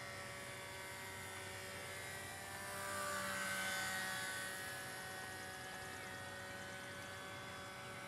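Small brushless electric motor and propeller of a HobbyZone Champ RC plane in flight at full throttle: a steady, high buzzing whine. It grows louder around three to four seconds in, and its pitch bends slightly, then it settles back.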